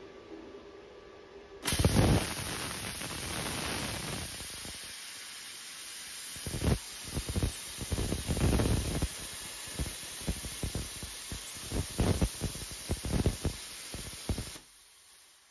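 Lidl 30-amp plasma cutter on a homemade CNC gantry cutting steel plate. The arc strikes suddenly about two seconds in with a loud hiss, crackles irregularly through the cut, and shuts off sharply near the end.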